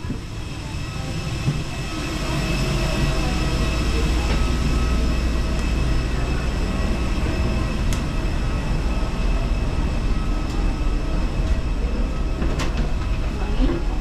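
Steady low rumble with a thin high whine, typical of the machinery of a parked airliner and its boarding bridge, with a few faint clicks. It fades in at the start.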